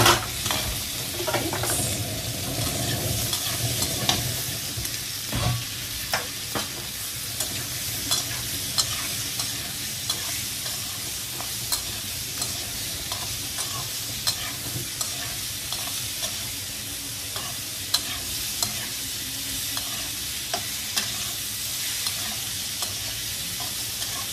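Boiled cauliflower sizzling in hot mustard oil with fried spice masala in a pan, stirred throughout, the utensil clicking and knocking against the pan at irregular moments.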